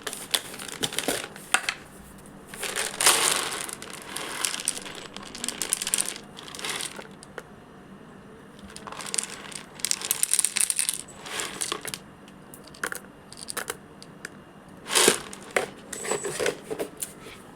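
Small hard pieces of food clattering and rattling into a dish in several spells of a second or more, with quieter gaps between.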